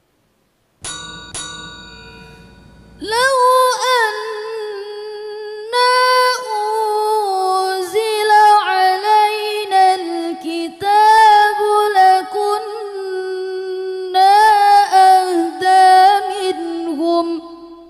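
A young woman's solo Qur'an recitation in qira'at murattal style: one long melodic phrase with ornamented, wavering pitch that starts about three seconds in and fades out near the end. It is preceded by two short ringing strikes about a second in.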